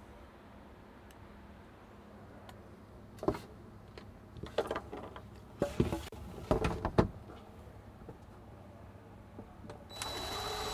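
A few short knocks and clatters as a plastic transfer-switch box is handled and pressed against the wall. Near the end a cordless drill starts driving a screw into it, its motor spinning up with a rising whine.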